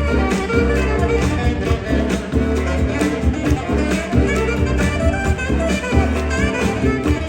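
Upbeat instrumental music with a steady beat, accompaniment for a stage performance.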